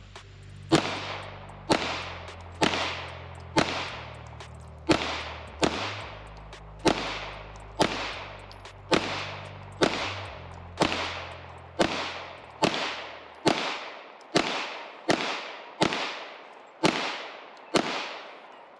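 A 9mm pistol fired in slow, steady single shots, about one a second, some nineteen in all, each shot followed by a short echoing tail. Faint background music with a bass line runs under the first two-thirds.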